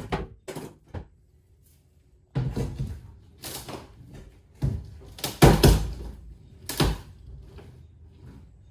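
Irregular wooden knocks and thumps as a plywood floor panel is worked loose with a pry bar, the loudest cluster a little past halfway.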